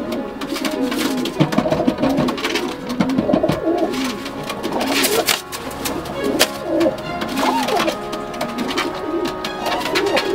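Racing pigeon cooing again and again and slapping its wings against a hand held out to it, with sharp wing claps among the coos. Background music runs underneath.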